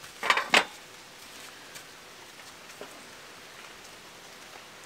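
Two quick clattering knocks of cooking gear being set down, a wooden cutting board and metal tongs, in the first half-second, followed by a quiet steady hiss with a few faint ticks.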